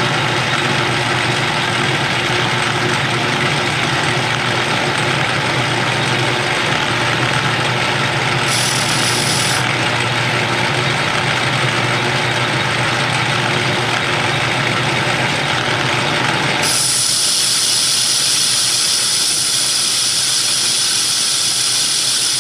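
Metal lathe running while a carbide-insert tool turns a step into a round metal workpiece: a steady machine hum with cutting noise. About three-quarters of the way through, the sound turns brighter and hissier.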